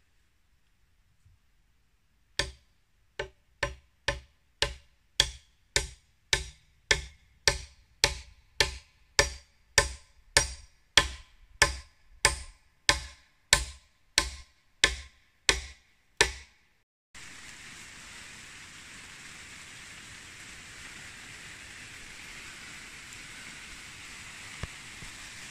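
A hammer driving nails into wood: a long run of sharp, ringing strikes at about one and a half a second, growing louder, that stops suddenly about 17 seconds in. A steady even hiss follows.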